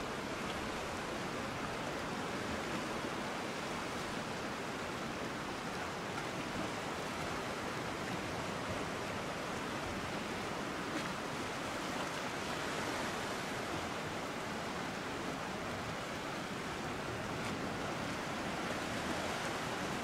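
Sea washing in among boulders on a rocky shore: a steady, even wash of small waves with no distinct breaking surges.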